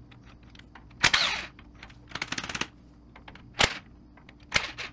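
Impact wrench spinning off the 9/16 axle-shaft nuts on a full-floating rear hub. There is a burst about a second in, then a rapid hammering rattle, then two short sharp bursts near the end. The right-handed nuts buzz off quickly.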